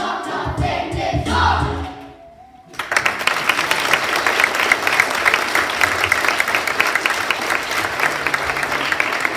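A group of children singing together; the song ends about two seconds in. After a brief pause, an audience breaks into sustained applause.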